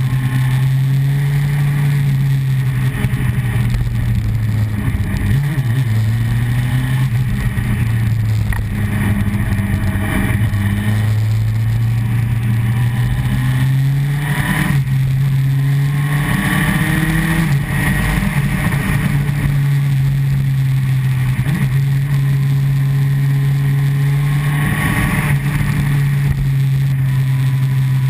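Honda CBR954RR Fireblade's inline-four engine running on the move, its note rising and falling with throttle and gear changes and revving up several times, over a steady rush of wind noise.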